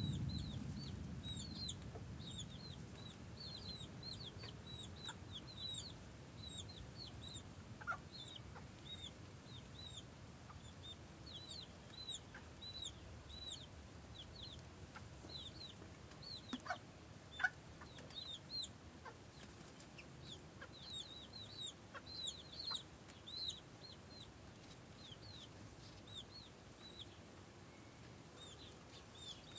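Chicks peeping over and over in short, high calls, with a few lower clucks from the broody mother hen leading them. A low rumble fades out in the first couple of seconds.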